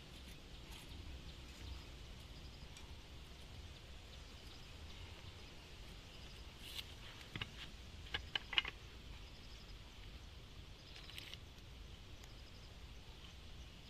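Faint outdoor background with a few scattered sharp clicks or taps, most of them in a cluster about halfway through. The chainsaw is not running.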